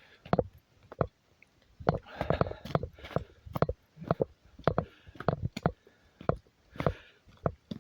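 Footsteps of a person walking on a forest trail, a steady thud about twice a second.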